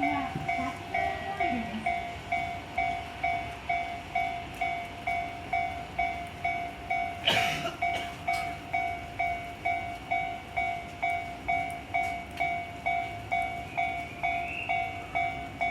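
Japanese railway level-crossing alarm ringing its two-pitched electronic ding at a steady rate of about two strikes a second, warning of an approaching train. A short burst of noise cuts across it about seven seconds in.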